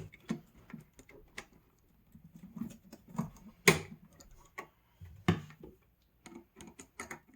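Irregular small clicks and taps of a wire and screwdriver being worked on the terminal screw of a single-pole light switch, with two louder clicks about four and five seconds in.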